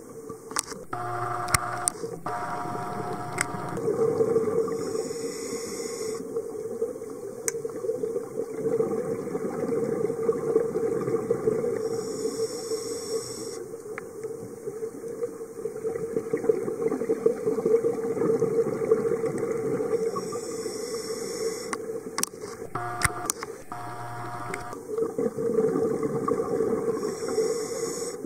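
Underwater sound picked up through a dive camera's housing: a steady low rush, with a scuba diver's regulator breathing coming around in a hiss about every seven seconds, and a few sharp clicks.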